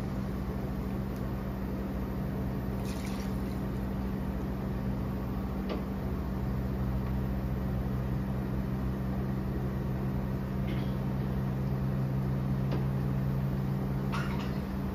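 Induction cooktop humming steadily, its low tone growing stronger about halfway through, while a silicone spatula stirs milk sauce in a nonstick pan with soft liquid sloshing and a few faint scrapes.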